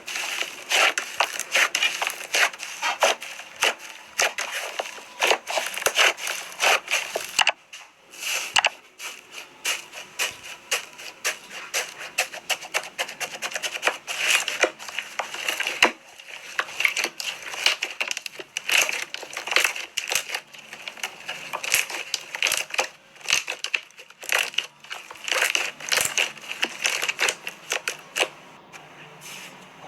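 Slime being pressed, squeezed and kneaded by hand, giving a dense, irregular run of sticky clicks and crackling pops, with a brief lull about eight seconds in.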